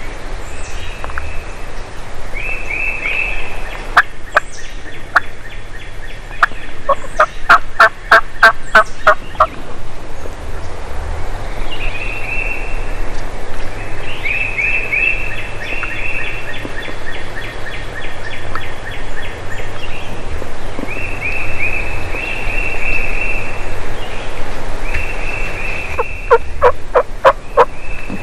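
Wild turkeys calling: a gobbler gobbles about a third of the way in and again near the end, a rapid rattling run of notes. Between the gobbles come repeated short series of high yelps.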